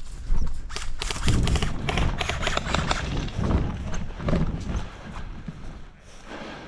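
Heavy footsteps thudding close to a body-worn camera, about two to three a second with gear jostling, easing off after about four seconds.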